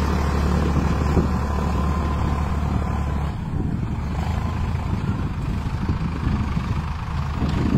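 Farmtrac 60 PowerMaxx 55 hp tractor's diesel engine running steadily under load while pulling an 8-disc harrow, at low revs. The deep low rumble drops off about three seconds in.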